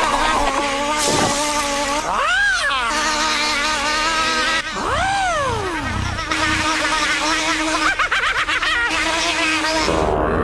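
Cartoon blender motor running with a steady buzzing whine. Two swooping sounds rise and fall over it about two and a half and five seconds in.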